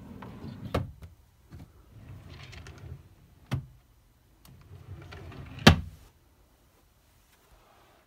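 Wooden IKEA chest drawers slid along their runners three times, each low rumbling slide ending in a sharp knock as the drawer hits home; the third knock, about two thirds of the way in, is the loudest.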